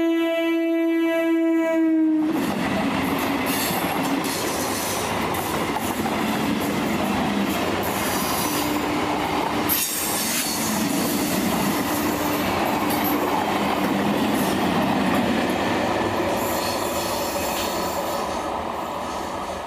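Electric multiple unit (EMU) local train sounding its horn in one steady tone that cuts off about two seconds in. It then passes close at speed, with loud wheel-and-rail noise and rapid clickety-clack over the rail joints.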